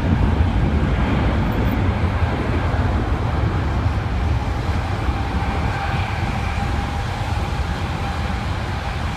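Jet engines of a departing Boeing 737-800, a steady low rumble, with a faint high whine coming in about halfway through as the level slowly eases.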